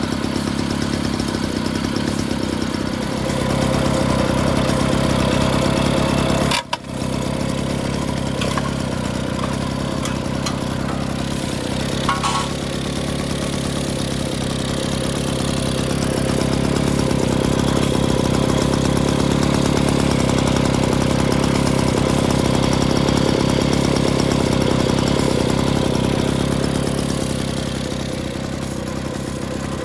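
Small two-stroke single-cylinder engine of a 1956 Rhonson moped, running steadily at idle, a little louder through the middle stretch.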